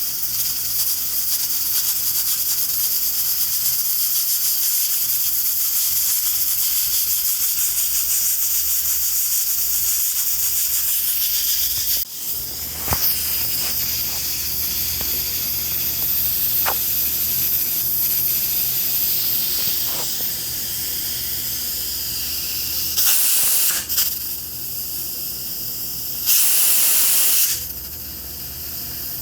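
Pressure cooker hissing steadily as steam escapes from its valve. The hiss breaks off briefly about halfway, then returns, with two louder spurts of about a second each near the end.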